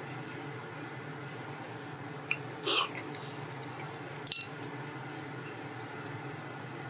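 Small pot of water boiling on a gas stove, a steady bubbling, with a short rustling sound about two and a half seconds in and a few sharp clicks a little after four seconds.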